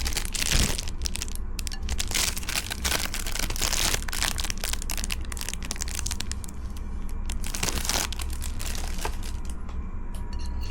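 Packaging crinkling and rustling with irregular small clicks and crackles as unboxed items are handled and unwrapped.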